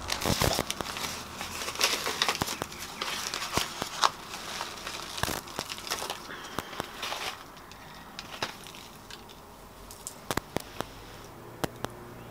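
Newspaper wrapping crinkling and rustling as plants are pulled out of it by hand. The crackling is dense for the first seven seconds or so, then thins to a few scattered crackles.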